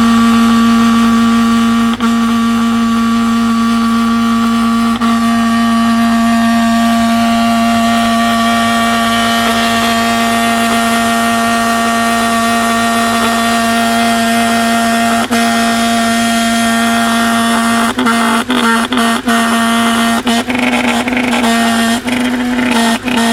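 Audi S8 4.2-litre V8 engine (AVP) running with a strange noise: a steady, even tone over the engine sound. About three-quarters of the way through, the sound turns choppy with many short breaks and clicks.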